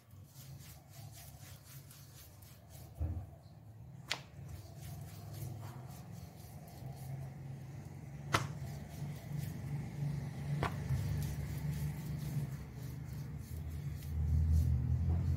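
Paratha dough being handled and then rolled with a wooden rolling pin on a stone rolling board: soft rubbing with a few sharp knocks, and a low rumble that grows louder near the end as the pin rolls over the board.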